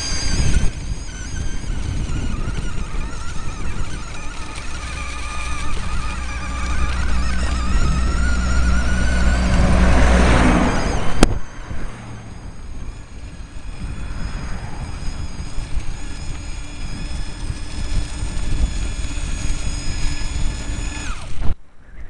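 Electric vehicle's motor, running in its Y (wye) winding, whining as it drives over rough ground, the whine rising and falling with speed over a heavy rumble. About eleven seconds in the rumble cuts off sharply, leaving a quieter, steadier whine.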